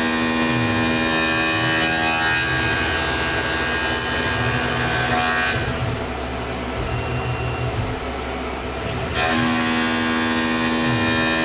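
Tormach CNC mill running a cut, a steady machine whine made of many tones, with a rising sweep a few seconds in. About halfway through the whine drops away, leaving a lower rumble, and it comes back near the end.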